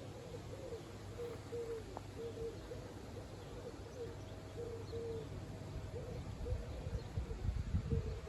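Strong wind gusting against the microphone as a low rumble, building into heavier gusts near the end. A short, faint hoot-like note repeats about two or three times a second throughout.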